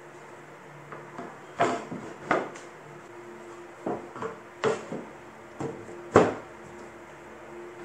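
Laminated wooden board pieces set down one by one onto a wooden frame, giving a series of about seven sharp wooden knocks and clacks, the loudest about six seconds in.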